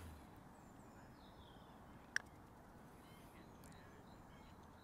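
Near silence with faint bird calls, broken about two seconds in by one sharp click of a putter striking a golf ball.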